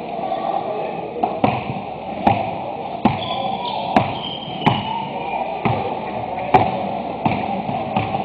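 Basketball dribbled on a hardwood gym floor, sharp bounces about once a second ringing in the hall, with a few short high sneaker squeaks partway through.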